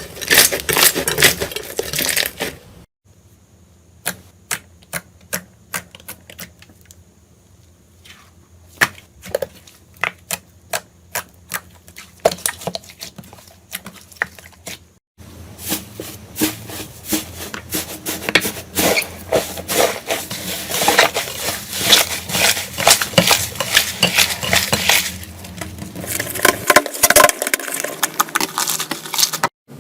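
Crunchy slime being squeezed and pressed, crackling and popping in quick clicks. It shifts over a few clip changes: dense crackling, then for a while separate sharp pops a few per second, then dense crackling again.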